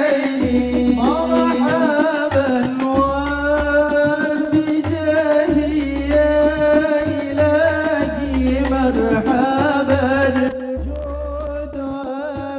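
Devotional Arabic music: a solo voice sings long ornamented melodic lines over a low, pulsing bass accompaniment, softening slightly near the end.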